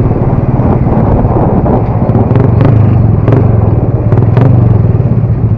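Motorcycle engine running steadily under way, with a few short sharp clicks in the middle.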